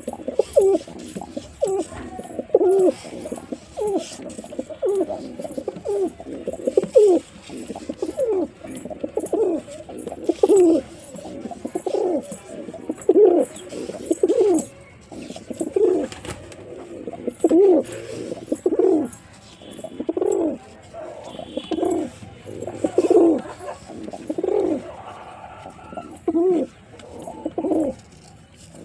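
A male white domestic pigeon cooing over and over: low, rolling coos that rise and fall, about one a second, with no pause.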